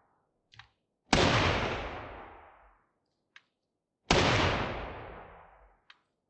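Two rifle shots about three seconds apart, each trailing a long echo, with faint clicks between them, from a semi-automatic rifle fired while caked in mud. The rifle is still cycling and firing.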